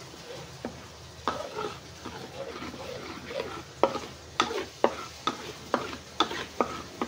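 Metal spatula scraping and clacking against a metal wok as a thick syrupy mixture is stirred, over a light sizzle. The clacks come sparsely at first, then faster and sharper in the second half.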